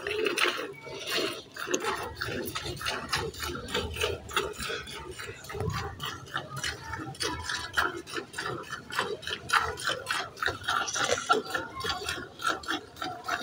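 Hand-milking a cow: streams of milk squirting into a steel pail in a quick, regular rhythm of short hissing spurts.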